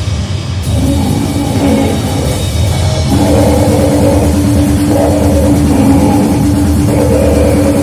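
Loud harsh noise music: a dense wall of distorted noise over a heavy low rumble. A steady droning tone sets in about three seconds in, with rougher surges above it every second or two.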